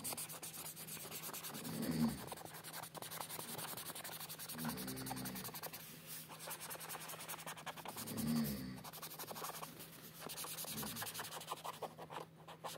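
Green felt-tip marker scribbling on paper in quick back-and-forth colouring strokes. A short low hum-like sound comes back about every three seconds.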